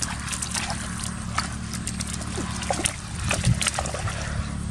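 Boots squelching and splashing through wet mud, a run of short sharp wet slaps and sucks as a person wades and kicks, over a steady low hum.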